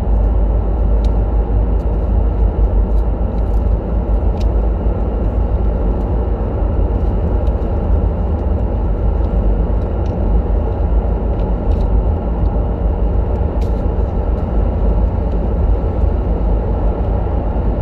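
Steady low rumble of a car's cabin while it is being driven: road and engine noise heard from inside, with a few faint clicks now and then.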